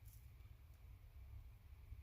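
Near silence: a steady low hum, with a faint click near the start and another less than a second in.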